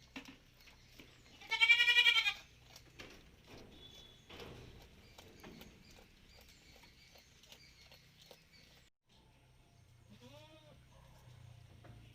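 Malabari goats bleating: one loud, wavering bleat about a second and a half in, and a fainter, lower bleat near the end.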